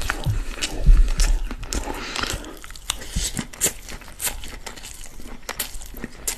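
Close-miked eating of spiced chicken-and-rice kabsa: a metal spoon scoops from a glass plate, then a mouthful is chewed with many short wet clicks and smacks. There is a heavier low thump about a second in.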